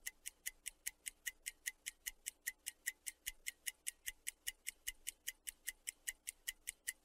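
Faint ticking-clock timer sound, about five even ticks a second, filling the pause given to translate a sentence before the answer is read. It stops near the end.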